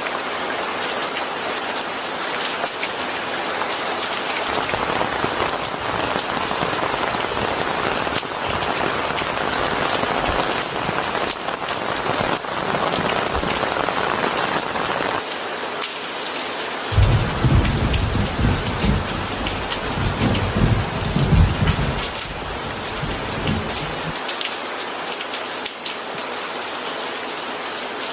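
Steady rain falling, an even hiss of drops. About two-thirds of the way through, a deep rumble of thunder rolls in for several seconds, then fades.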